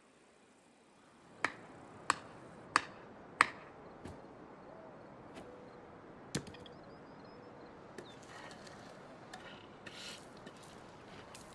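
Four sharp strikes about two-thirds of a second apart, a little over a second in, then a single strike and scattered lighter knocks and rustling.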